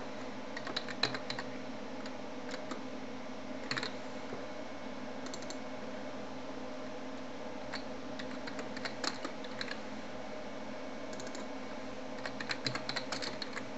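Typing on a computer keyboard in several short bursts of keystrokes, over a steady low hum.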